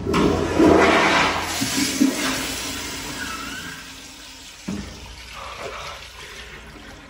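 Commercial flushometer fixture flushing: a loud rush of water that tapers off over about four seconds, with a short knock near the end.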